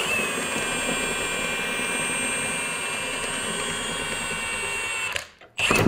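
Cordless impact wrench spinning a scissor jack's lead screw through a socket, lowering the jack: a steady motor whine that runs for about five seconds and then stops.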